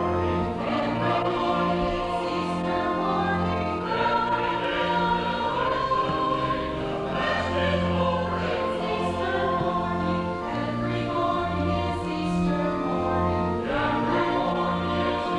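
A choir singing a hymn over organ accompaniment, with long sustained bass notes underneath.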